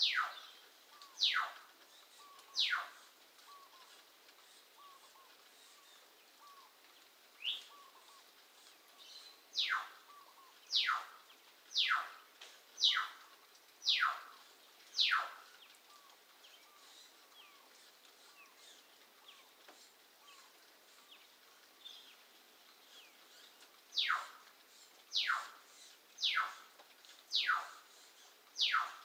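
A pet bird calling over and over, each call a short, loud whistle that drops steeply in pitch, about one a second in bouts, with a pause of several seconds in the middle.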